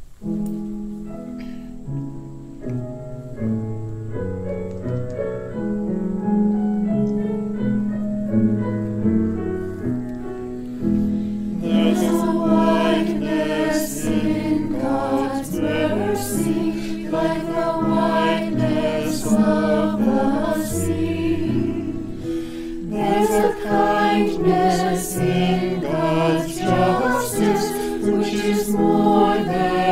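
A church choir singing a hymn: about twelve seconds of slow held chords, then the voices come in with words, break off briefly near the middle, and start again.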